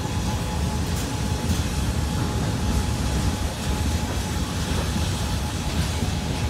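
Freight train's hopper wagons rolling slowly past at close range as the train departs: a steady low rumble of wheels on rail. A faint thin whine runs through most of it, and there are a couple of faint clicks about a second in.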